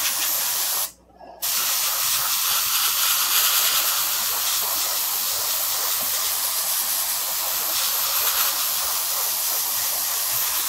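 Paasche hobby airbrush spraying paint: a steady hiss of compressed air, cut off for about half a second about a second in.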